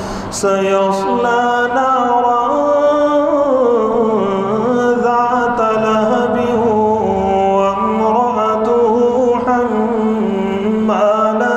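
One man's melodic Quran recitation in the tarteel style, sung in long held, ornamented phrases whose pitch slides up and down. The voice is picked up by a lapel microphone.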